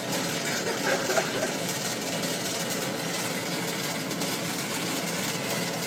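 A steady engine-like hum, with faint voices about a second in.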